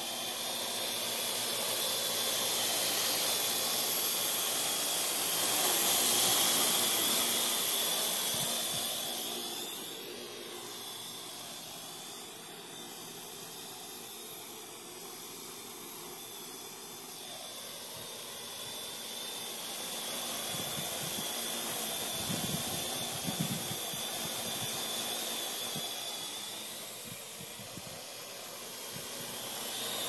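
Parrot AR.Drone quadcopter's four electric rotors whirring steadily with a high hiss and a thin whine, swelling and fading as it flies: louder in the first third, softer in the middle, louder again later.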